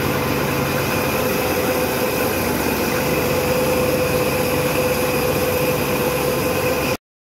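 Belt-driven saw cotton gin running steadily, its pulleys, belts and drive shaft turning with a constant mechanical drone and a steady hum. It cuts off suddenly near the end.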